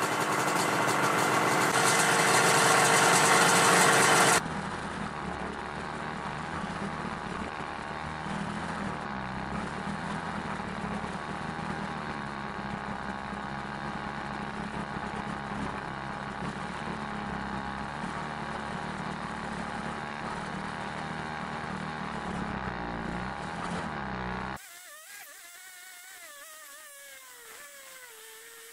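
Snowmobile engine running, loud and close for about the first four seconds, then after a cut running steadily and more quietly as the machine rides along the trail. For the last four seconds a fainter whine wavers up and down in pitch.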